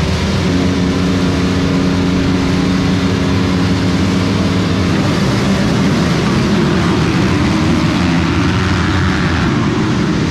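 A pack of motocross bikes on the starting line with engines held at steady high revs, then all accelerating hard off the gate about five seconds in, a dense mass of engine noise.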